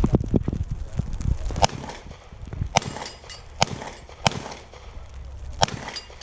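Handgun shots fired at a practical-shooting stage, five sharp reports spaced about a second apart.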